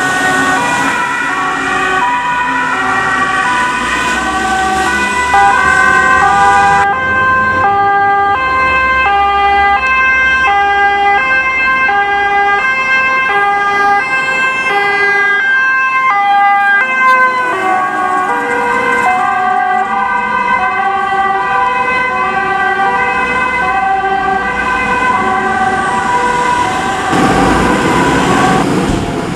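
German fire engine two-tone siren (Martinshorn) sounding its alternating high-low call, about two notes a second, over engine and road noise. At times a second siren overlaps it. Near the end the siren stops and a louder rush of vehicle engine noise follows.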